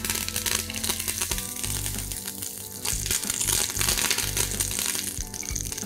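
Mustard seeds and curry leaves crackling in hot oil in a pan, a dense run of small pops, over background music.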